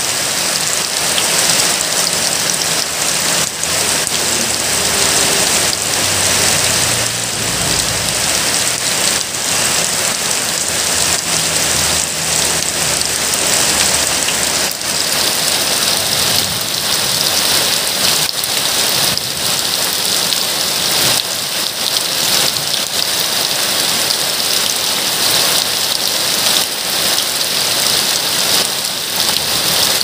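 Heavy rain falling steadily onto flooded, stony ground, drops splashing into standing water.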